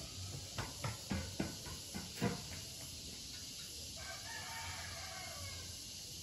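A rooster crowing in one long call about four seconds in, after a run of short sharp sounds in the first couple of seconds.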